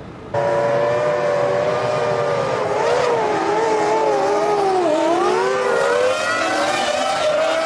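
Formula One cars' 3-litre V10 engines at high revs, cutting in sharply just after the start. Several engine notes overlap, waver, dip about five seconds in as the cars slow, then rise again under acceleration.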